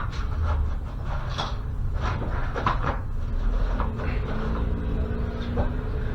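Irregular clinks and knocks of hand tools on metal, from working at a stuck wheel bearing and retaining ring on a Toyota pickup's axle, over a low steady rumble.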